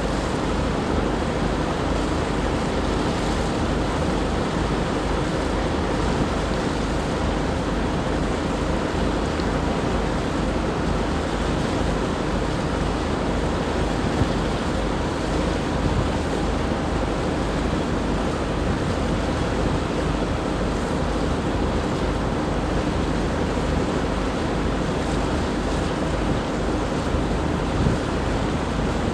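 Steady rush of wind on the microphone and moving water, with a faint low steady hum underneath.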